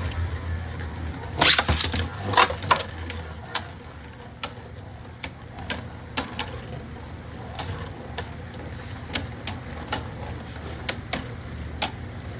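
Two Beyblade Burst spinning tops clashing in a plastic stadium: a flurry of loud, sharp plastic clicks about one and a half to three seconds in, then lighter clicks at irregular spacing as the tops keep spinning and hitting.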